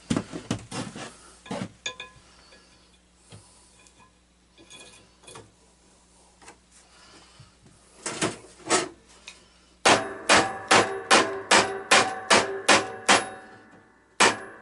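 Hammer striking metal: a quick run of about a dozen ringing blows, roughly three a second, in the last few seconds. Before that come a few scattered clinks and knocks of tools and parts being handled.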